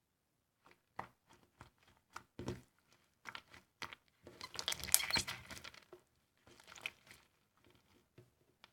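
Jelly slime filled with styrofoam beads being squeezed and pressed, giving scattered sharp crackles and pops that build to a dense burst of crackling around the middle, then thin out.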